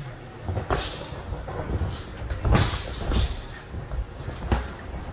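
Boxing sparring: padded gloves landing a few sharp smacks and thuds, over the low rumble and shuffle of feet moving on the ring canvas.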